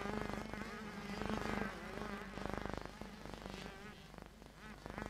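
Several 100cc two-stroke motocross bikes racing. Their engines make an overlapping buzzing whine that rises and falls in pitch as the riders open and close the throttle.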